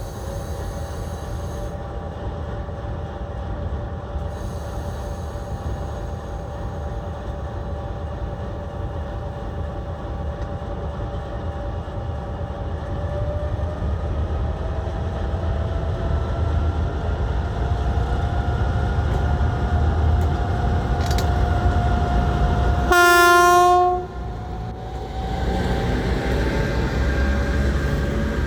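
Locomotive pulling a train away from a station, its running note slowly rising as it picks up speed. One loud horn blast of about a second sounds near the end.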